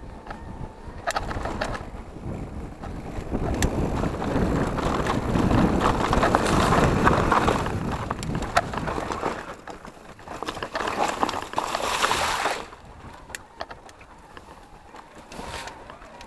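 Electric mountain bike riding over a rough, rocky dirt trail: rushing tyre-and-wind noise with frequent knocks and rattles from the bike. It is loudest in the middle and drops off sharply about three-quarters of the way through.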